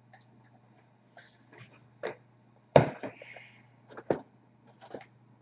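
Small cardboard boxes of hockey cards handled and set down on a glass tabletop: a few scattered taps and knocks, the sharpest a little before the middle, with a brief rustle just after it.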